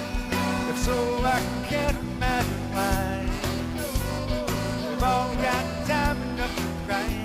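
A live rock band with a horn section (trombone, saxophone and trumpet) playing a brass-led instrumental passage over drums, bass, keyboards and guitar, with a steady beat.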